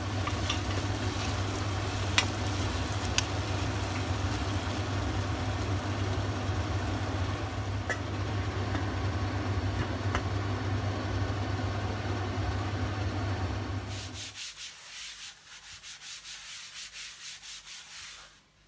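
Steady low hum with a fan-like rush from a running kitchen appliance while the chicken filling cooks on the stove, with a few sharp clicks of a wooden spoon against the pot. About fourteen seconds in this gives way to quieter, rhythmic rubbing of a hand sweeping across a smooth white work surface.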